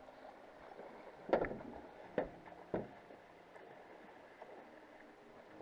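Three sharp knocks, the first about a second in and the other two within the next second and a half, over a faint steady hum.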